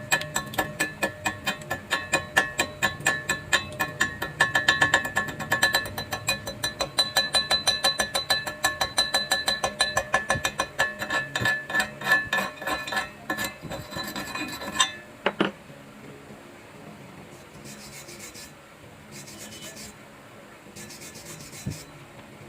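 Hand tool scraping and striking steel in rapid strokes, about four or five a second, with the metal ringing. The strokes stop abruptly about two-thirds of the way through, after one sharper hit, and a few brief faint scratchy noises follow.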